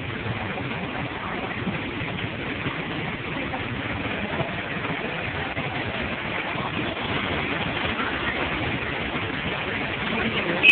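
Steady traffic noise with a city bus engine running as the bus drives through floodwater, its wheels throwing up spray. A brief sharp loud sound right at the end.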